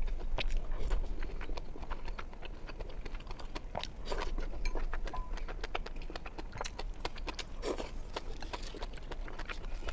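Close-miked mouth sounds of someone eating: wet chewing with many quick clicks and smacks, irregular throughout.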